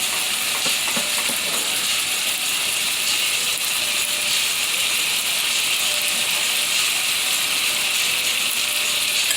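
Chicken breasts frying in oil in a pan, a steady sizzle.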